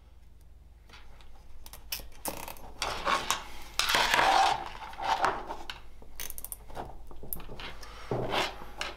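Plastic cable ties being pulled tight around wiring on a motorcycle tail-tidy bracket. Irregular clicks, rustles and light clatter follow as the bracket assembly is handled and turned over, loudest about four seconds in.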